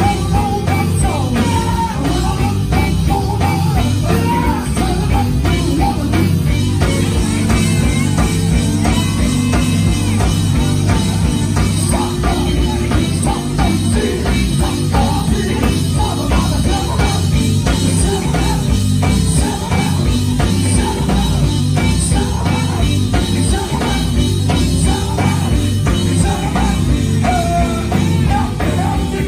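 Live gospel band playing an up-tempo song: drum kit, electric guitar, bass and keyboard, with a lead singer's voice over the band.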